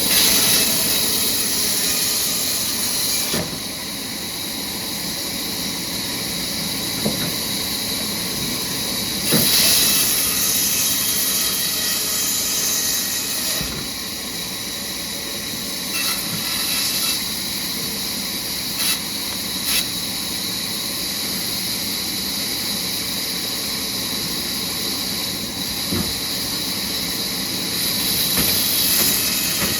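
Sawmill saw cutting through raw logs: a steady mechanical hiss with several louder, higher stretches lasting a few seconds each as the blade runs through the wood, and a few short knocks.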